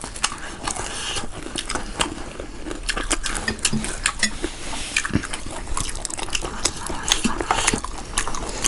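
Close-miked eating: wet chewing and mouth clicks mixed with light taps of cutlery on dishes, coming as many irregular short clicks.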